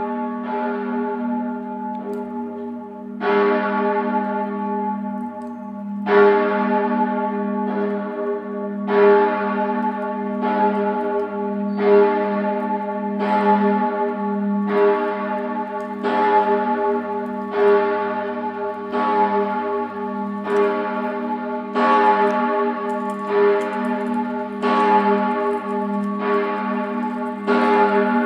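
The largest bell of a five-bell peal, a 1957 Bochumer Verein cast-steel bell tuned to A-flat (Asº) in the V7e profile, swinging and ringing alone. Its strokes come a few seconds apart at first, then settle into a steady beat about every second and a half, each stroke ringing on into the next.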